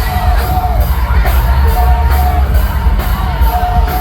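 Live band playing loud amplified music with heavy bass, a singer holding long notes.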